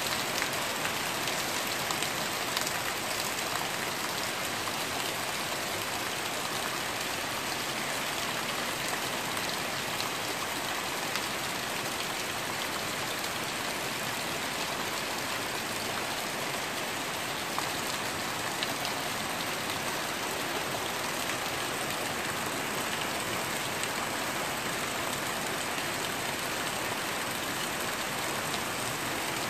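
Heavy rain falling steadily, a dense even hiss of a downpour on trees and ground, with water running off a roof edge. It is storm rain that the uploader thinks may come from a typhoon.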